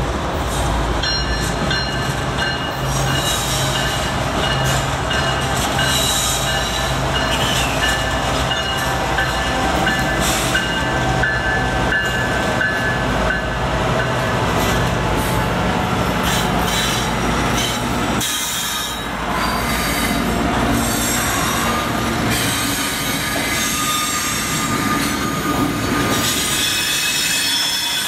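Freight train passing: the diesel locomotives, a CSX GE unit leading, run with a steady low drone under high wheel squeal for the first two-thirds. After a short dip about 18 seconds in, the wrapped-lumber flatcars roll by with their wheels squealing in several high tones.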